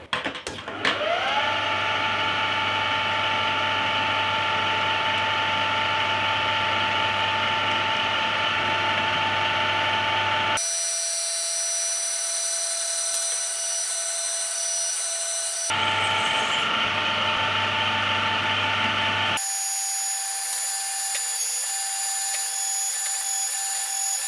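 Homemade CNC conversion of a Belfex BF 520C mini lathe running a job: the motor spins up with a rising whine about a second in, then runs as a steady high whine over a low hum. The sound changes abruptly three times, as the footage jumps between moments of the machining.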